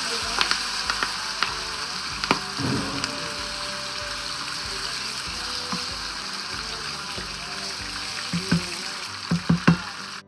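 Diced raw chicken sizzling steadily in hot oil in an electric skillet while a wooden spoon stirs it, clicking against the pan. There are a few louder knocks near the end.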